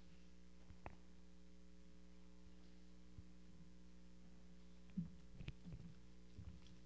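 Near silence with a steady electrical mains hum. A faint click about a second in, and a few soft bumps near the end as a handheld microphone is handled and fitted into its stand.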